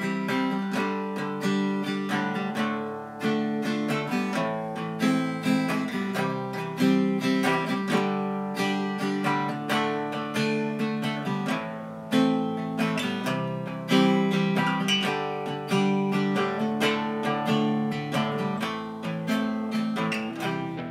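1955 Rodebald Hoyer Samba archtop guitar played unplugged, chords picked one after another in a steady rhythm: the guitar's own acoustic sound.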